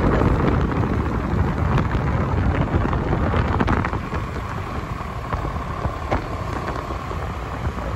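Wind buffeting the microphone on a moving motorcycle, over the bike's engine and road noise; the rumble eases about halfway through.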